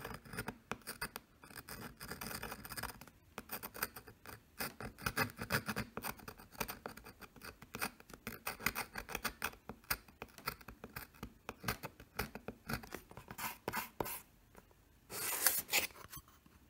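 Engraving pen's metal tip scratching letters into an aluminum seed-phrase plate in many quick, irregular short strokes. A louder scrape of about a second comes near the end.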